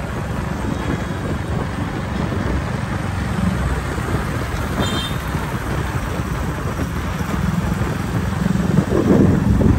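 Riding a motorbike in town traffic: a steady rumble of engine and road noise with other motorbikes passing, growing louder near the end. A short high beep comes about halfway through.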